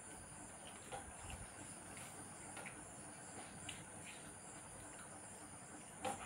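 Faint steady chirring of crickets, with a few soft clicks of fingers against metal plates as rice is mixed and eaten by hand; the loudest click comes just before the end.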